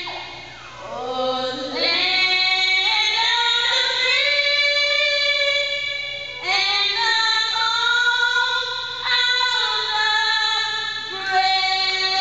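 A woman singing solo, a cappella, into a microphone and amplified over a PA system, in long held notes.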